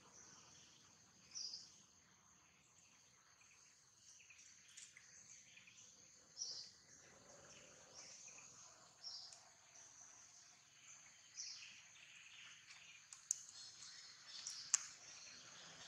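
Quiet outdoor ambience: steady high insect chirring, with short high chirps every few seconds and two sharp clicks about a second and a half apart near the end.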